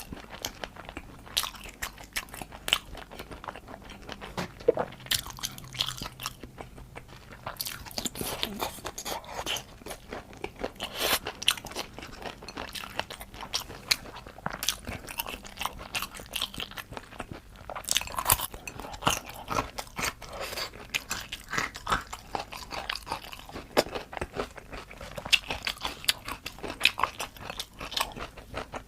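Close-miked eating of crunchy food: continuous crunching, biting and chewing, a dense run of sharp, irregular crackles.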